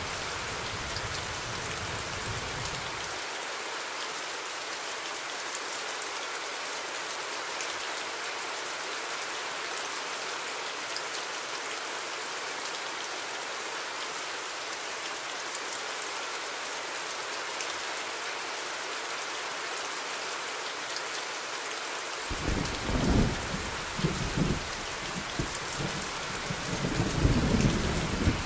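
Steady rain, an even hiss, with low rolls of thunder rumbling several times in the last six seconds.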